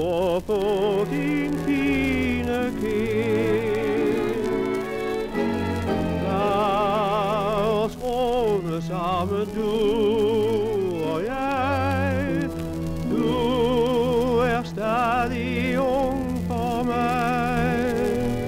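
A 1940s Polyphon 78 rpm shellac recording of a sentimental song: a male singer with a wide, even vibrato over a small orchestra.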